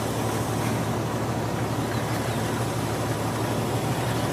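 Jeep Wrangler engine idling, a steady low rumble.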